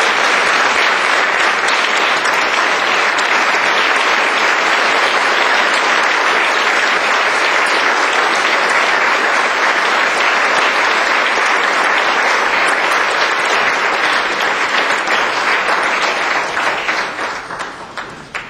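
Audience applauding steadily and loudly, the clapping thinning out and dying away over the last couple of seconds.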